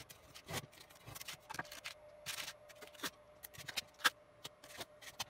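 Blue painter's tape being handled and smoothed onto a 3D printer's aluminium bed: irregular crackles, scrapes and rubs, over a faint steady hum.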